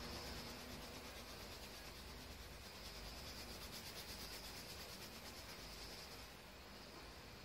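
Coloured pencil rubbing on drawing paper in quick, faint back-and-forth shading strokes, laying down a base layer of colour.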